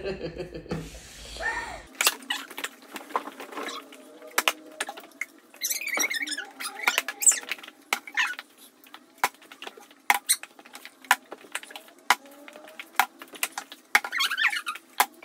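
A partly filled plastic water bottle tossed again and again onto a wooden table, starting about two seconds in: many sharp clacks and knocks, some in quick clusters as the bottle lands, tips over and is picked up again.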